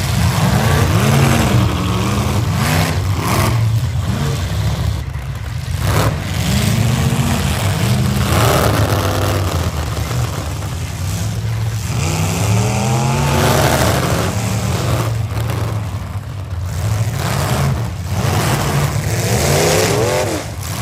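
Several economy-class V8 demolition derby cars' engines running and revving up and down, overlapping one another. There are a few sharp bangs, likely from the cars hitting each other.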